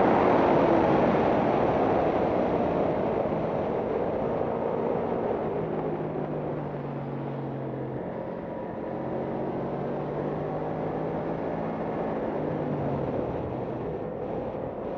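Racing motorcycle heard from onboard on track: high revs cut off as the throttle closes, then the engine runs at lower revs under a steady rush of wind noise, the overall sound easing over the first few seconds.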